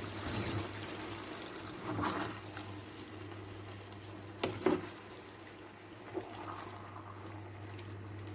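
Pot of vegetable soup simmering under a steady low hum, with a brief hiss at the start and a few sharp knocks of a utensil against the pot as the vegetables go in and are stirred.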